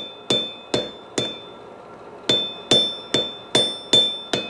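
Hand hammer striking a red-hot steel bar held across a hardy tool on a steel anvil, each blow leaving a high metallic ring. Three blows, a pause of about a second, then six more in an even rhythm of about two and a half a second.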